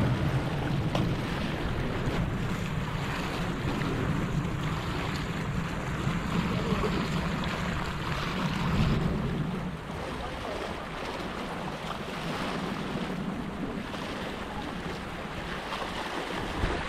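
Small waves washing and splashing over a sandstone rock ledge at the water's edge, with wind rumbling on the microphone, heavier in the first half.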